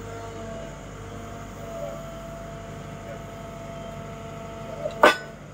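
Cat M314 wheeled excavator's diesel engine running with a steady hydraulic whine as its grapple handles a concrete kerb block. A single sharp clunk near the end as the kerb comes down on concrete.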